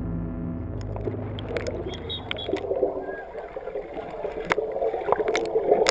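Guitar music fading out as the sound of swimming-pool water comes up: sloshing and splashing with scattered sharp clicks.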